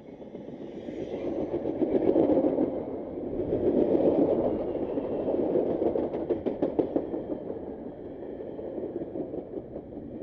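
Metra bilevel commuter train passing close by: the rumble of steel wheels on rail builds quickly and peaks a few seconds in as the leading cab car and coaches go by, with a quick run of wheel clicks over the rail joints around the middle.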